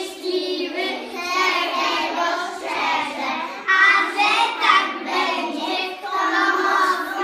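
A group of preschool children singing a song together in unison.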